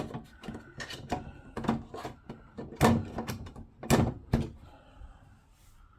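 Hard plastic parts of a cool-mist humidifier being handled and fitted together: a series of knocks and clicks, about seven sharper ones in the first four and a half seconds, then quieter.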